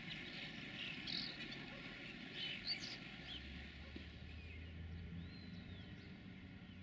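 Faint outdoor ambience with scattered high bird chirps, and a low rumble about halfway through that fades.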